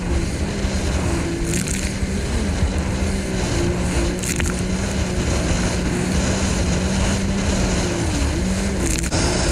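Jet ski engine running at speed, its steady pitch dipping briefly a couple of times, over the rush of water and spray and wind buffeting a head-mounted microphone.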